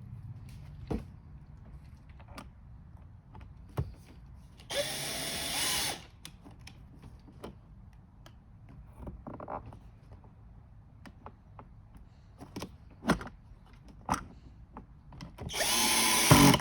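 Power drill driving screws in two bursts of about a second each, one about five seconds in and one near the end, with scattered clicks and knocks of parts being handled in between.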